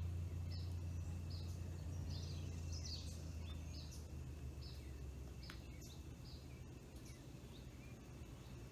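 A bird chirping over and over, short high notes about twice a second that thin out near the end, over a steady low hum.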